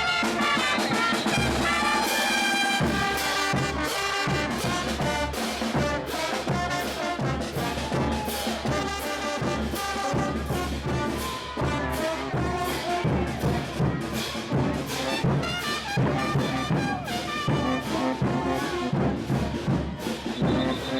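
Brass band of trumpets and trombones playing a tune over frequent drum strokes, traditional parade band music.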